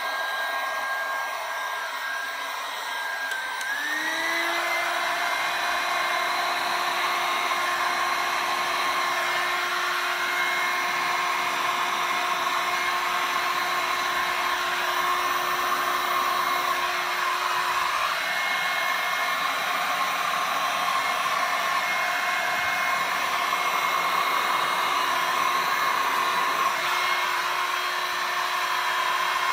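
Handheld electric heat gun running steadily, its fan blowing with a rushing noise and a steady whine that steps up in pitch about four seconds in. It is playing hot air over wet epoxy resin, the heat used in resin art to pop bubbles and push the paint into lacy cells.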